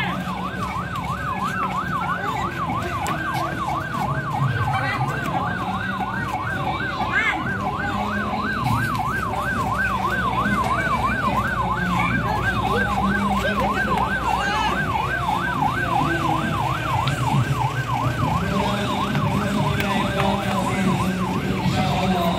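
A police pickup's electronic siren sounds a fast yelp, its pitch sweeping up and down several times a second. It stops shortly before the end.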